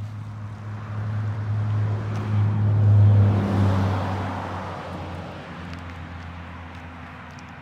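A pickup truck driving past on the road, its engine and tyre noise swelling to a peak about three seconds in and then fading away.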